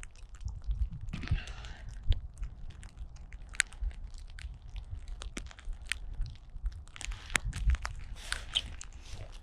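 Snow and ice crunching, with many irregular sharp clicks and a low rumble underneath.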